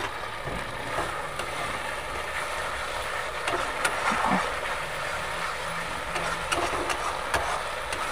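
Spice paste frying in oil in a metal kadai, with a steady sizzle, while a metal spatula stirs it and clinks and scrapes against the pan now and then.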